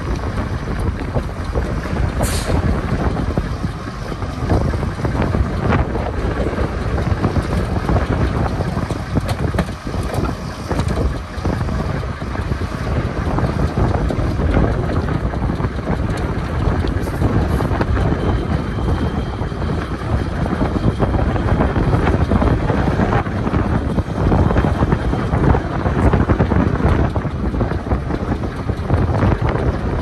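Heavy diesel machinery running steadily: a dump truck's engine working as it raises its bed and tips a load of dirt, with a bulldozer behind it. Wind buffets the microphone throughout.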